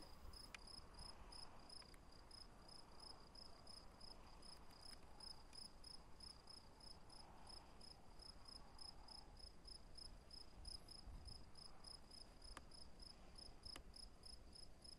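Faint cricket chirping: a steady high-pitched pulse repeating about three times a second.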